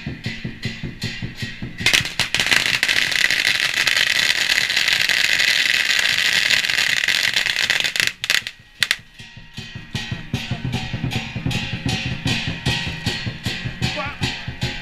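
A string of firecrackers goes off in a loud, dense, rapid crackle for about six seconds. It starts about two seconds in and stops suddenly. Music with a steady beat plays before and after it.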